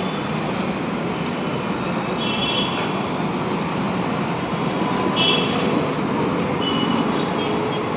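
Steady street traffic noise, with a few short high-pitched tones over it about two, five and seven seconds in.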